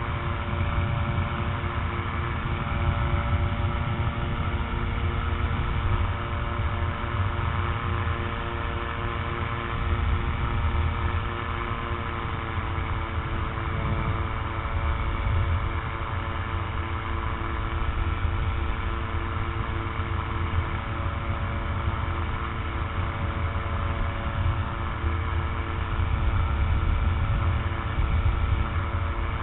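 Rotax 912 four-cylinder engine of an open microlight trike, with its propeller, running steadily at cruise power in flight. Heavy wind rumble buffets the microphone throughout.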